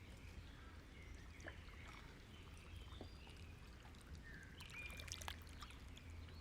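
Near silence: faint room tone with a low steady hum and hiss, and a few faint, short high chirps.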